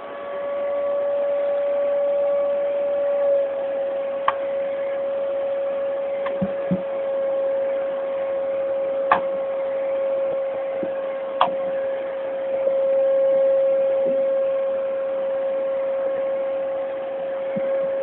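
Vacuum cleaner motor running steadily with a constant humming tone, with a few sharp knocks over it.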